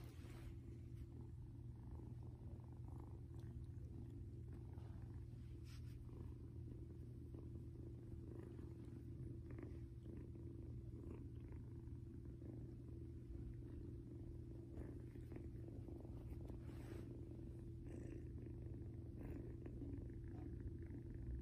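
Kitten purring softly and steadily, with a few faint brief rustles.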